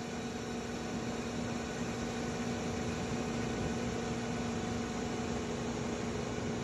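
Steady hum of a subway train standing at the platform, its ventilation and electrical equipment running: an even rushing noise with a low steady tone and its overtone.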